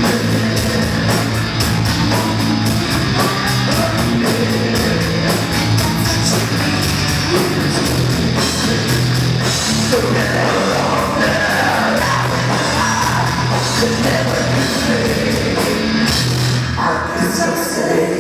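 Loud live heavy rock band playing: fast drum-kit hits over distorted guitar and bass, with a singer's vocals coming in.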